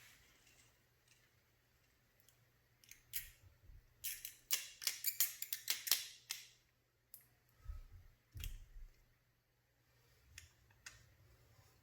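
Close hand-handling of pinstripe rim tape and its applicator: a quick run of sharp, crackly rasps about four seconds in, with scattered clicks and a couple of low thuds near the end.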